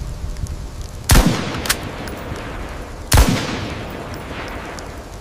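Two single rifle shots about two seconds apart, each a sharp crack with a long echoing tail, over a low rumble. A smaller sharp click follows shortly after the first shot.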